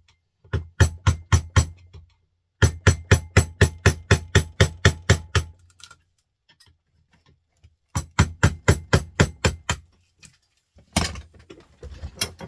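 Rapid hammer blows on a small printer motor's casing to open it: three quick runs of sharp, evenly spaced strikes, about four to five a second, then a short rougher scraping burst near the end.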